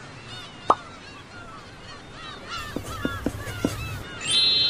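Birds squawking in many short, overlapping calls, with a few sharp pop sound effects, one early and a quick run of them past the middle. A bright, ringing chime starts near the end.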